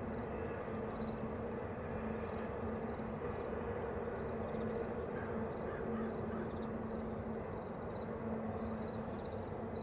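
Distant BNSF double-stack freight train passing, a steady low rumble with a constant hum. A short high chirp repeats about once or twice a second over it.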